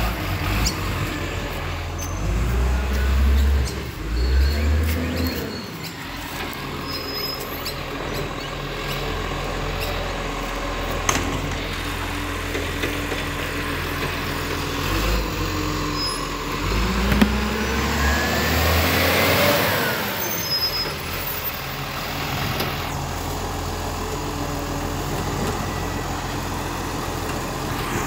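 Garbage truck's diesel engine running as the truck moves along the street, a steady low drone that swells louder twice.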